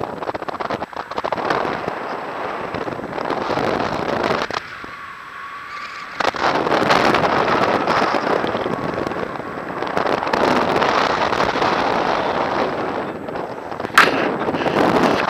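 Airflow buffeting the microphone of a paraglider in flight: a rough, crackling rush that eases for about a second and a half around five seconds in. A sharp click near the end.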